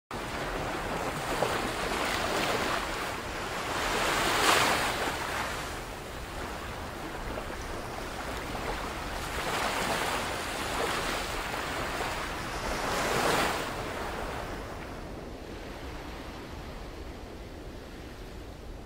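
Sea waves breaking and washing on the shore, rising and falling in slow surges every few seconds, loudest about four seconds in and again about thirteen seconds in, then settling quieter.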